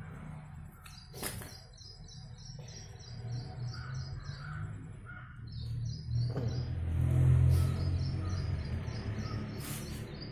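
A bird chirping in a fast run of repeated high notes, about five a second, which pauses and starts again about halfway through. Beneath it a low rumble swells and fades, loudest a little past the middle, with a sharp click just over a second in.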